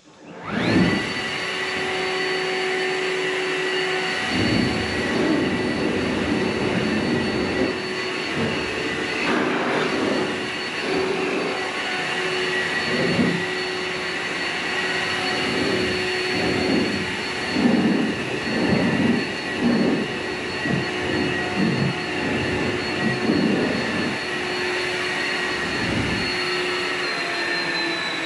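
Blower whining up to speed, running steadily as it blows dust out of the shop with uneven gusting, then winding down at the end.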